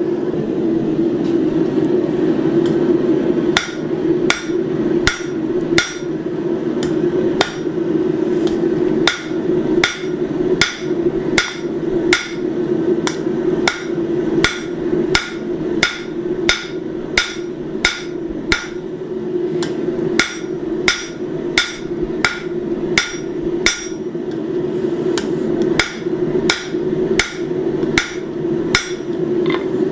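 Hand hammer striking hot steel on an anvil in a steady rhythm, about one and a half blows a second, with the bar held over the anvil's edge to set a shoulder where the leaf body meets the vine. A steady low hum runs underneath.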